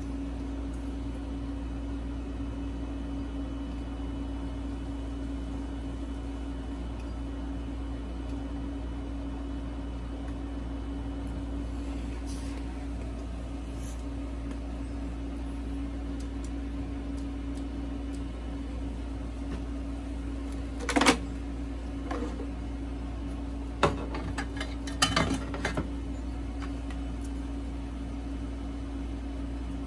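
A steady low electrical hum, with a handful of sharp plastic clicks and light clatter about two-thirds of the way in as Dolce Gusto coffee capsules are picked up and handled.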